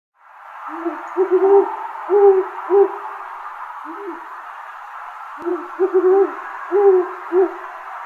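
Great horned owl hooting: two series of deep hoots, each a quick stuttered run followed by longer single hoots, with a lone hoot between them. A steady background hiss runs underneath.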